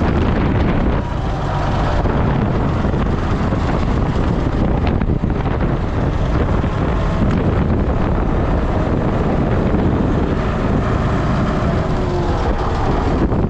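A vehicle running steadily, with wind buffeting the microphone.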